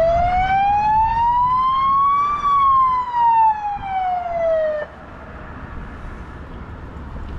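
Police car siren giving one short wail, a signal to pull over: the tone rises smoothly for about two and a half seconds, falls back just as smoothly and cuts off suddenly about five seconds in.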